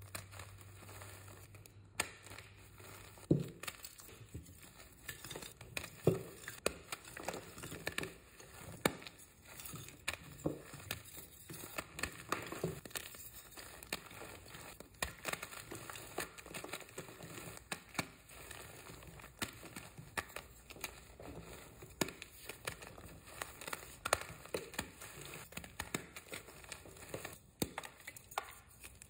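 Reformed gym chalk crushed and crumbled in the hands: a run of crisp, irregular crunches and crackles as the pieces break down into powder.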